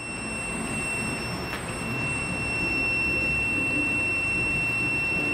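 A steady, high-pitched electronic buzzer tone sounds without a break over a steady rushing noise, which swells slightly in the first couple of seconds and then holds.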